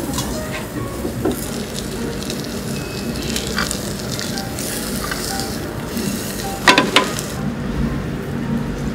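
Egg mixture with green onion sizzling in a square copper tamagoyaki pan over a gas flame, worked and folded with chopsticks. A couple of sharp knocks about seven seconds in.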